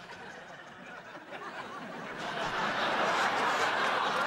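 Sitcom studio audience laughing, low at first and swelling to a full laugh from about two seconds in.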